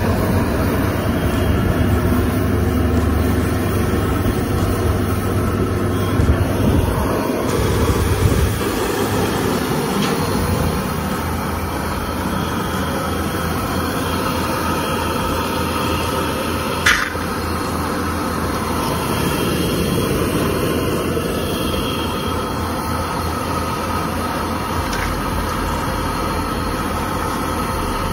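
Potato fries deep-frying in a wok of hot oil, a steady loud sizzling. A single sharp click comes about seventeen seconds in.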